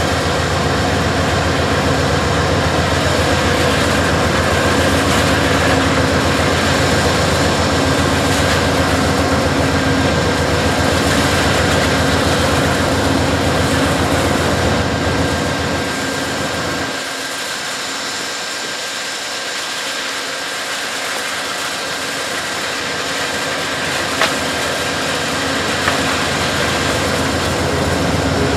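Amtrak GE Genesis diesel locomotive idling at a station stop: a steady, loud diesel drone with a strong low hum and a few steady whining tones. About two-thirds of the way through the low rumble drops away and the sound thins, filling back in near the end.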